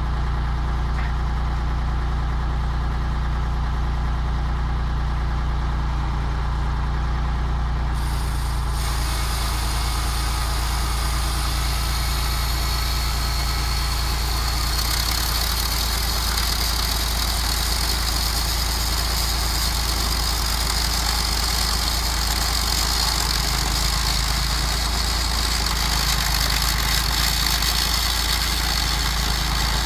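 Tractor engine running steadily under a homemade firewood saw with a chainsaw-type bar. About eight seconds in, the saw chain starts with a high hissing whine and cuts into a log, growing louder a few seconds later as the cut deepens.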